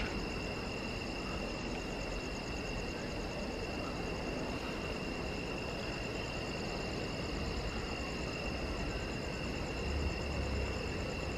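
Night chorus of crickets: a steady high trill, with a second, faster-pulsing trill above it.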